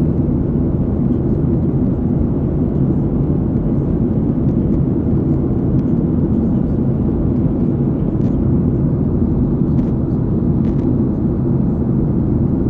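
Steady, low rushing cabin noise of a jet airliner in flight, engine and airflow noise heard from inside the passenger cabin.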